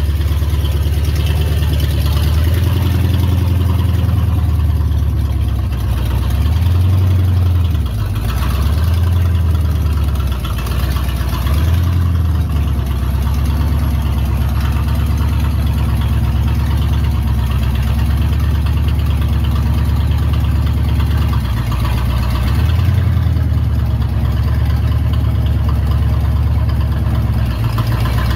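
Ford Explorer's V8 engine running as the SUV is driven slowly on its front wheels only, with the rear axle removed, its engine note rising and falling several times.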